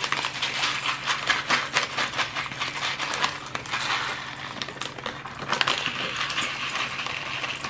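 Dry yellow rice poured from its packet onto uncooked white rice in a pot: a dense patter of grains hitting and rattling, with the packet crinkling. Near the end it turns to a softer rustle as the grains are mixed by hand.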